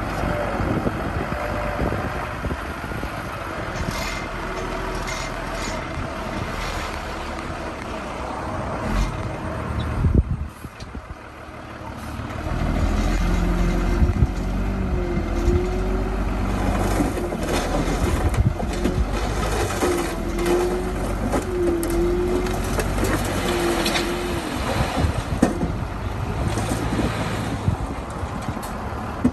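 Diesel engine of heavy earthmoving equipment running under load, with scattered metallic clanks and a wavering whine. The sound drops briefly about ten seconds in, then comes back louder.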